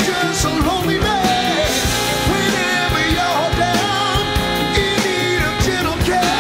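Rock music with a sung vocal over a steady drum beat.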